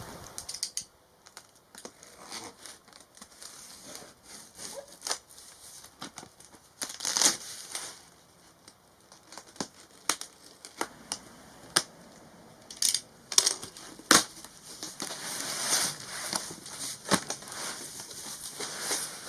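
A parcel being unpacked by hand: packaging crinkling and tearing, with scattered clicks and knocks.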